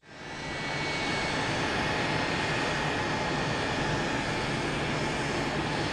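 Jet aircraft engine running steadily: a constant rushing noise with a high whine over a low hum, fading in over the first half second.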